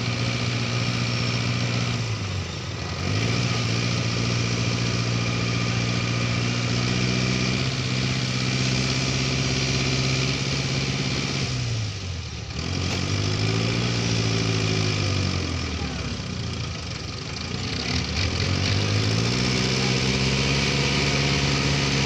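Diesel tractor engine straining to pull a heavily loaded trailer. Its pitch drops and climbs back up several times, around 2 s, 12 s and 17 s in, as the engine bogs under the load and recovers.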